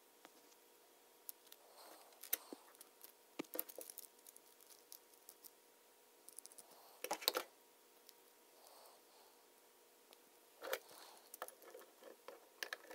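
Lego Technic pieces clicking and clattering as hands snap gears, axles and beams together: scattered small clicks, with a louder run of clicks about seven seconds in and another burst near the end.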